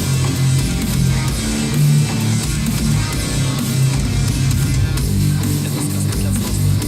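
Guitar-driven rock music with a steady bass line, played back through S-90E (35AS-012) loudspeakers fitted with Alphard midrange and tweeter drivers and picked up by a Zoom H1 recorder.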